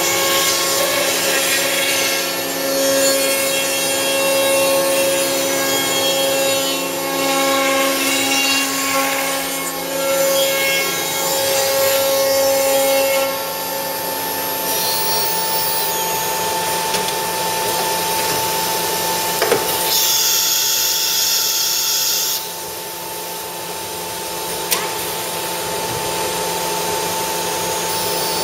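Horizontal CNC milling machine cutting: steady whine of the spindle and drives over a scraping, hissing cutting noise. A louder high hiss lasts about two seconds past the middle, and there are two sharp clicks.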